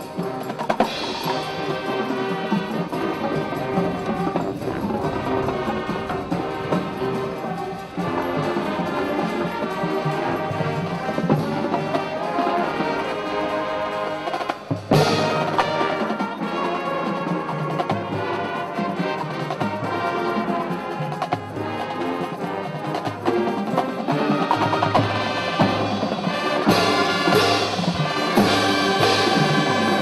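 High school marching band playing its field show: brass chords held over drumline and front-ensemble percussion. A sharp percussion hit about halfway through opens a new section, and the band grows louder and brighter near the end.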